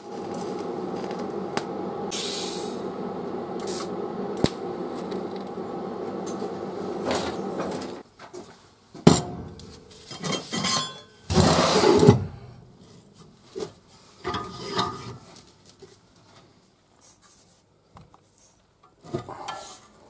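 Electric welding arc buzzing steadily for about eight seconds, then cutting off. After it, scattered metal clatter and heavy knocks as steel parts and a cast-iron bench vise are handled on a steel workbench.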